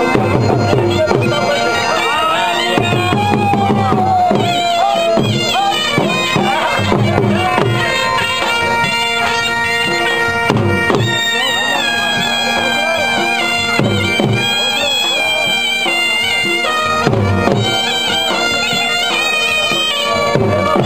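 Loud wind-instrument music, a melody played over a steady drone, with drum beats.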